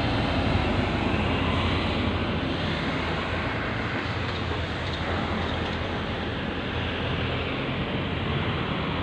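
Road traffic noise at a roundabout, with a dump truck's engine running low and steady as it passes in the first few seconds, then easing off.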